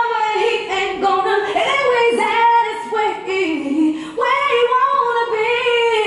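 Music: a sung vocal melody with held, gliding notes over light accompaniment, with no drum beat or bass.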